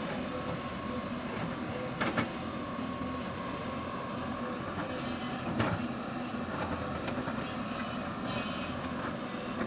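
Excavator's diesel engine running steadily, with two sharp metallic clanks, about two seconds in and again just past halfway.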